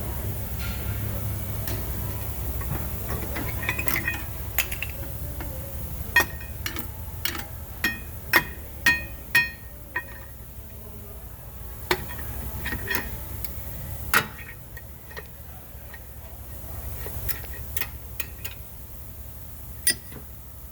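Sharp metal clinks and taps as brake pads, their clips and hand tools are handled at a car's rear disc brake caliper. About a dozen come quickly together from about four to ten seconds in, then a few single clinks, over a steady low hum.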